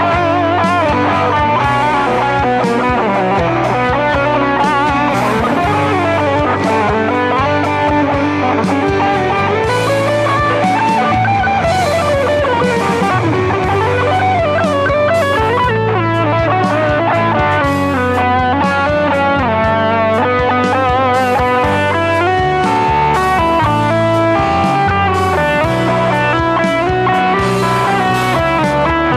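Electric guitar music: a lead guitar line with bends and wavering notes over a steady low bass.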